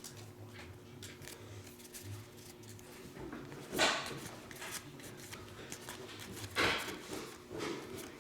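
Trading-card packs and cards being handled: two short rustles, about four seconds in and again near seven seconds, over a faint steady hum.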